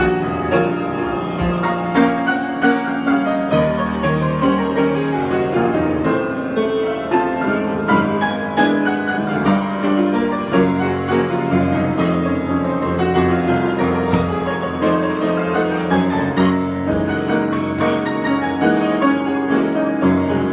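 Piano improvisation: a continuous flow of notes and chords.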